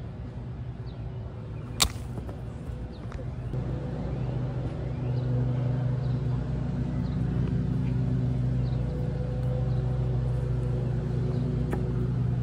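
A steady engine hum, like a motor vehicle running close by, builds up from about three or four seconds in and holds. About two seconds in there is a single sharp knock, and a fainter click comes near the end.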